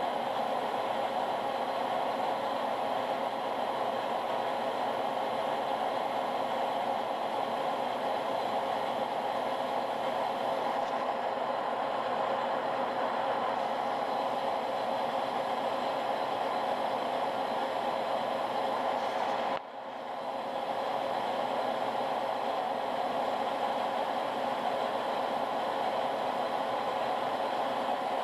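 Metal lathe running steadily, its chuck and spindle spinning with a constant whir and a steady hum-like tone. The level dips briefly about twenty seconds in, then recovers.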